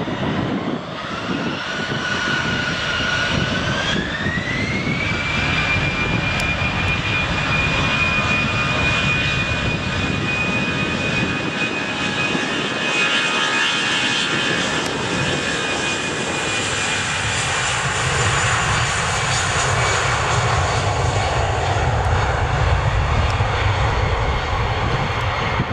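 An Airbus A319's twin jet engines spooling up for takeoff. A high whine rises in two steps over the first five seconds and then holds steady. A deep rumble builds in the last third as the airliner accelerates down the runway.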